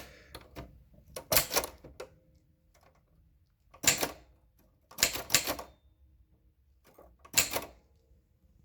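Remington Starfire manual portable typewriter being typed on slowly: separate sharp key strikes with pauses between them, about five loud ones and a few fainter clicks.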